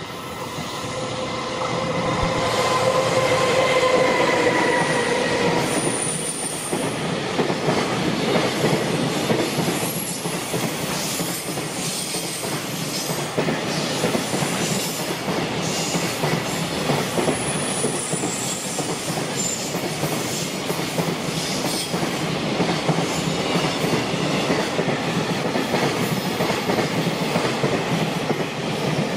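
JR Freight EF210 electric locomotive and its long train of container flat wagons passing at speed on a curve: a steady whine as the locomotive goes by for the first few seconds, then the continuous rumble and clatter of the wagons' wheels on the rails, with a few brief high wheel squeals.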